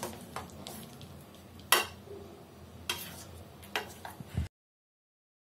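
A hand mixing chopped food in a stainless steel bowl: soft rustling with a few sharp clinks against the steel. The sound cuts off suddenly near the end.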